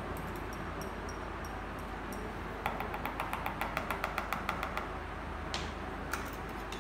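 A spoon scraping and tapping against a bowl, a quick run of light clicks, about seven a second, through the middle, as egg and cornstarch batter is scooped out. Underneath is a steady background hum.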